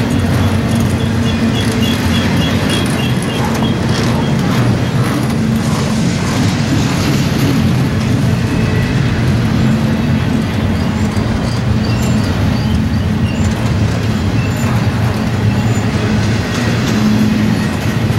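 Double-stack intermodal container train passing, its well cars rolling by with a steady rumble of wheels on rail.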